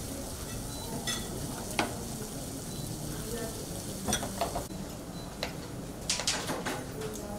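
Cooking at a busy kitchen counter: a spoon stirring and clinking in a bowl over a steady frying sizzle. Scattered sharp taps of utensils and a knife come in small clusters, most of them in the second half.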